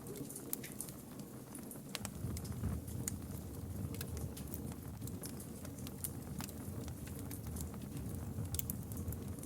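Wood campfire crackling: irregular sharp pops and snaps over a steady low rumble of burning.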